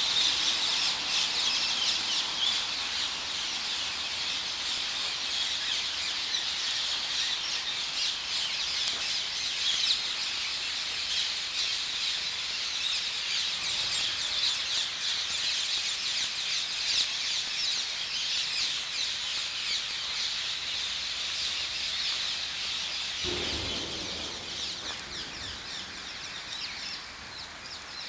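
A large flock of rose-ringed parakeets, several hundred birds, screeching and squawking all at once in a dense, unbroken chorus of shrill calls, a little quieter near the end.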